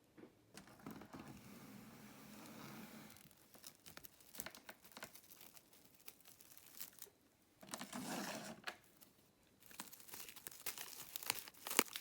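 Crinkling and rustling of material being handled, in several stretches, with scattered small clicks and knocks.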